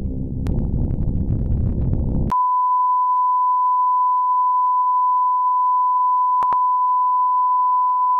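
A low, dense rumbling drone that cuts off suddenly about two seconds in and gives way to a steady, unbroken pure beep tone, the test tone played with television colour bars. A couple of faint clicks come partway through the tone.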